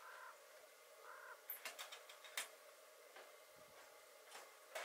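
Two short, faint bird calls about a second apart, then a scattering of faint sharp clicks and ticks.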